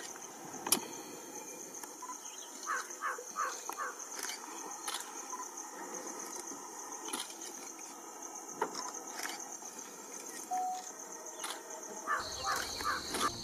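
Insects chirring steadily at a high pitch, with scattered sharp clicks and a few quick series of short chirps. Near the end a steadier, lower insect tone takes over.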